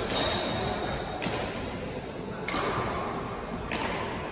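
Badminton rackets striking a shuttlecock back and forth in a rally: four sharp hits about a second and a quarter apart.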